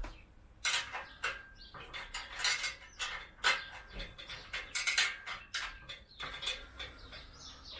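Irregular metallic clinks and clanks, a dozen or so short knocks with brief ringing, as steel parts and tools are handled while assembling an engine crane.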